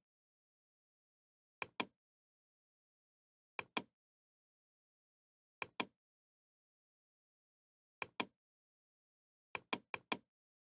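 Computer mouse clicks in quick pairs, a pair about every two seconds, then four quick clicks near the end, with silence between.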